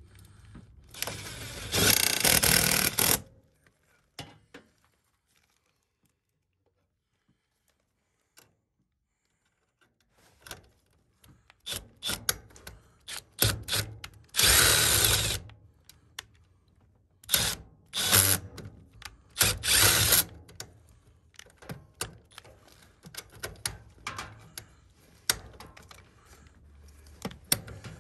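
Cordless drill driving self-drilling sheet-metal screws into a galvanized steel furnace vent pipe elbow. It runs in short bursts of one to two seconds with clicks and metal rattles between them, and there is a quiet spell of several seconds early on. Some screws slip on the tape wrapped around the joint.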